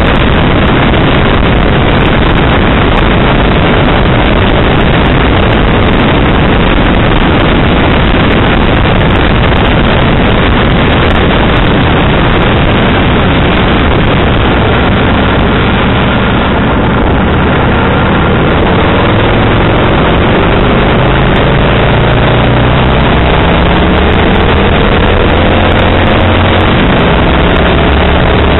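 Kawasaki VN1500 V-twin motorcycle riding along a road, heavy wind noise on the low-mounted camera's microphone over the engine note. In the second half the engine note climbs steadily as the bike accelerates.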